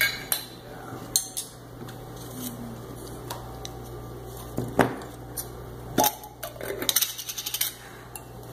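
Metal spoon clinking and scraping against a small glass jar, and metal jar lids knocking on a stone counter: scattered sharp clicks, the loudest about halfway through, then a quick run of small clinks near the end.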